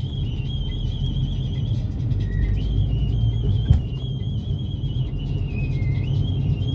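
Low road and engine rumble inside a moving Swift hatchback's cabin, with a thin, high, wavering melody line of music over it. One sharp knock comes about halfway through.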